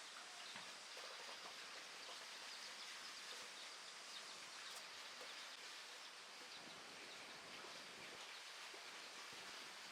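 Faint outdoor ambience: an even background hiss with scattered faint, high chirps.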